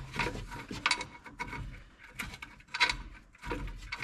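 Metal hand tools working a shock absorber's mounting nut loose: irregular clicks and knocks of tool on metal.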